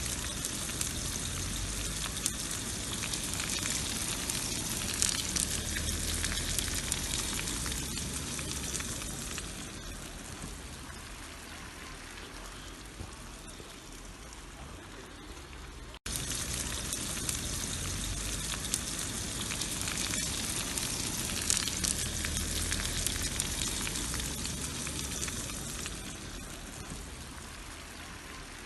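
Sucuk, Turkish spiced sausage, frying in oil in a pan: a steady sizzle full of small pops and crackles. It eases off about ten seconds in, drops out for an instant at about sixteen seconds, and comes back loud.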